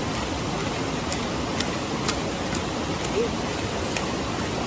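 Steady rush of a river, with sharp crackles every half second or so from the wood fire grilling the chicken.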